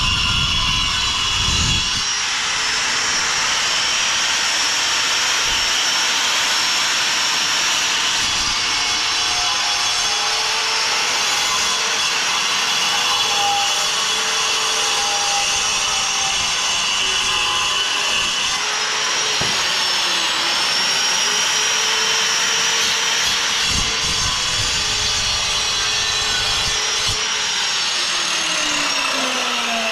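Corded angle grinder with a cutting disc running under load as it cuts through a black clay verge roof tile, a steady high-pitched grinding whine whose pitch dips briefly about two-thirds of the way through. Near the end the disc comes out of the tile and the motor winds down with a falling whine.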